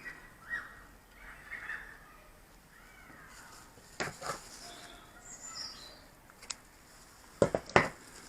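Birds calling, with short gliding calls early on and again past the middle, while a few sharp clicks and knocks sound, the loudest two close together near the end.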